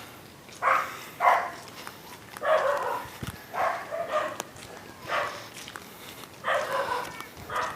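A dog barking repeatedly, about seven barks spaced irregularly.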